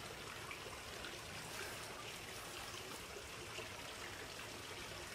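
Faint steady outdoor background hiss, with a few soft clicks as the plastic phone holder on the tripod is handled.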